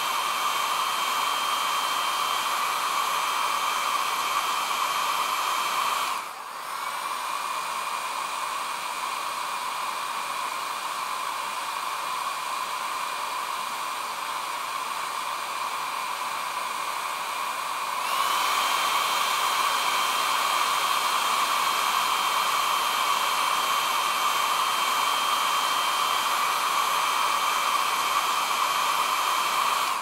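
Hair dryer blowing steadily with a high whine. About six seconds in it is switched down to its lower setting: there is a brief dip, then it runs quieter with a lower whine. About eighteen seconds in it is switched up to the higher setting, and the whine rises and the blowing gets louder.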